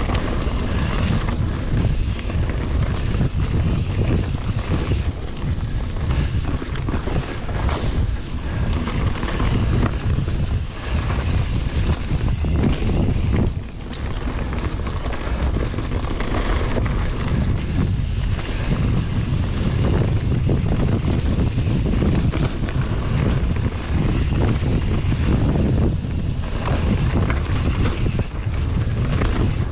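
Wind buffeting a mountain bike rider's camera microphone, over the low rumble of tyres rolling on a dirt forest trail, with many small knocks and rattles from the bike. It eases off briefly about halfway through.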